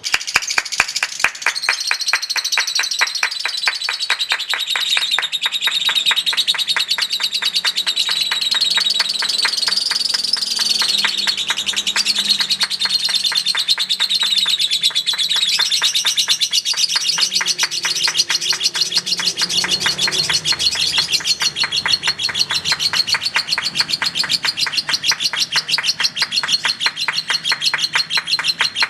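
Lovebird's long 'ngekek': an unbroken run of very rapid, shrill chattering notes that starts sharply and keeps going without a pause. This long, continuous ngekek is the trait prized in Indonesian lovebird song contests.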